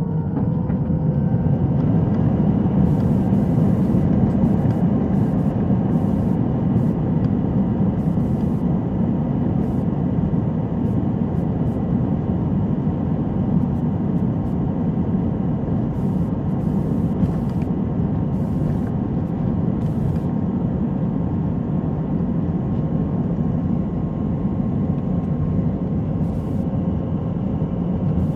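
Airbus A321 jet engines at takeoff thrust, heard inside the cabin over the wing: a loud, steady jet noise with a few steady whining tones above it. The spool-up is just finishing, so the sound swells in the first couple of seconds and then holds through the takeoff roll.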